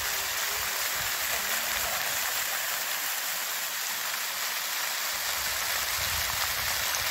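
Many fountain jets splashing steadily into a large ornamental pool, a continuous rushing hiss of falling water.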